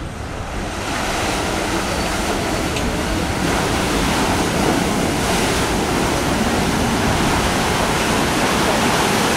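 Paddle wheels of a 1909 steam paddle steamer churning the lake water as the ship pulls away from the landing: a steady, loud rushing that swells about a second in.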